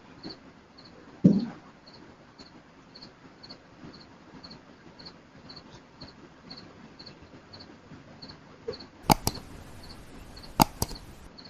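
A dog barks once about a second in, over a faint high chirp that repeats evenly two or three times a second. A few sharp clicks come near the end.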